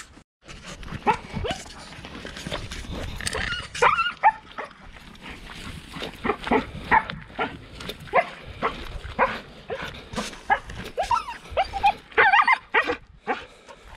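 Husky vocalizing: many short yelps and whines, some of them sliding up and down in pitch, repeated again and again.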